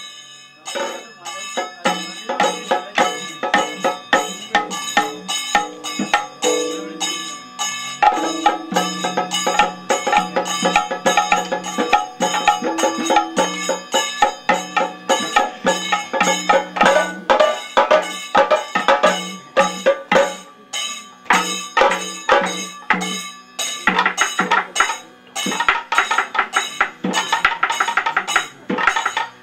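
Kathakali percussion music: rapid drum strokes mixed with ringing metallic strikes, over a steady low drone.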